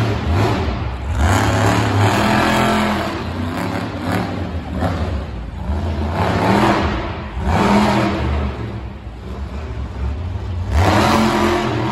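Monster truck engine revving hard in repeated surges, each rev climbing and falling away, with the truck driving around an indoor arena.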